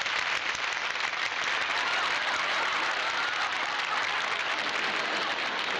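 Studio audience applauding steadily after an introduction, with a few voices faintly heard through the clapping.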